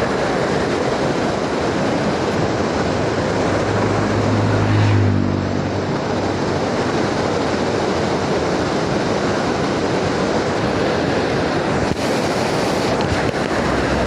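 River water rushing and churning over a stone ledge in white water, a dense, steady roar. Around the middle a low hum swells for a second or so, then fades.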